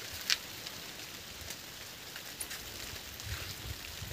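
Rain falling on garden foliage: a steady hiss with scattered drop taps, one louder tap just after the start.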